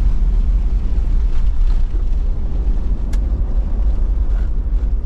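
Toyota Land Cruiser Troop Carrier driving, a steady low rumble of engine and road noise, with a single short sharp click about three seconds in.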